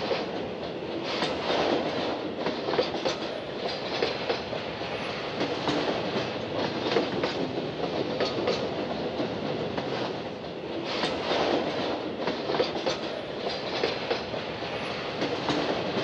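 Slow freight train behind Union Pacific Big Boy 4003 rolling through a rail yard: wheels clattering and clanking unevenly over rail joints and switches.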